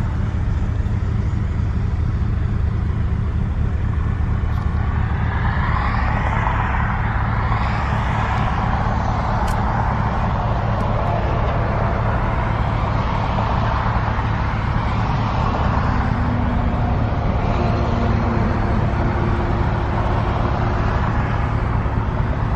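Steady low hum of a car idling in stopped traffic, heard from inside the cabin. A broad rushing noise swells a few times over it.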